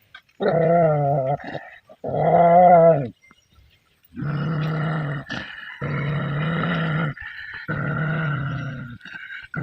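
A dog growling and barking in a run of five long calls, each about a second long, with short pauses between them.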